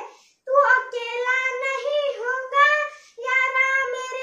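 A young boy singing a Hindi patriotic song unaccompanied, in long held notes, pausing briefly for breath about half a second in and again near three seconds in.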